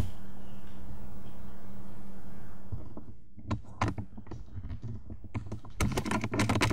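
Steady hiss with a low hum, then from about halfway in a run of sharp clicks and rattles, thickest near the end, like the bolt of a KJW M700P bolt-action airsoft rifle being worked to chamber the next BB after a shot.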